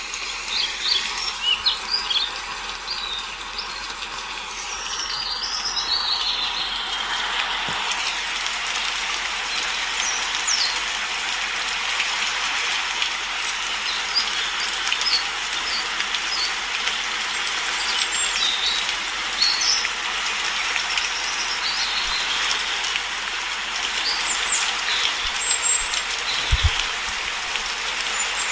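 Steady rain with songbirds chirping over it, short high calls scattered throughout and busiest near the start. The rain builds up over the first several seconds, then holds steady.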